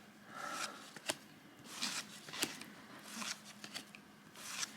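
1987 O-Pee-Chee baseball cards being flipped through one at a time by hand: soft sliding swishes about a second apart, with a few sharp clicks as the cardboard cards snap against each other.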